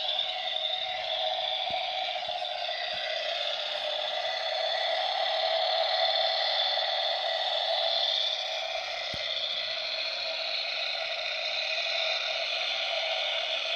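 Recorded Fiat 126p engine sound played by the scale model's sound module through its tiny built-in speaker: a steady, thin running sound with no bass, dipping slightly in level about two-thirds of the way through.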